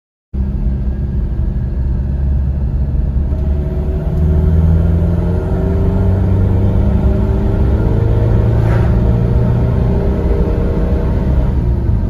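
PX Ford Ranger's turbo-diesel engine pulling at wide-open throttle from about 50 km/h on the stock turbocharger, heard from inside the cab. The engine note climbs steadily as boost builds, getting louder about four seconds in.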